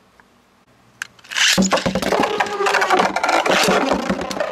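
Two Beyblade spinning tops launched into a plastic stadium and spinning and clashing: a faint click, then about a second and a half in a sudden loud whirring rattle full of rapid clicks.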